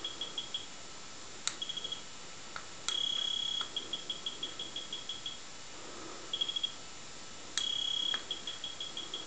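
Electronic dice's buzzer beeping at a single high pitch: a long beep, then a run of short beeps about five a second that lasts a couple of seconds, then a brief rapid trill. The pattern comes round twice, and a sharp click sounds at the start of each long beep.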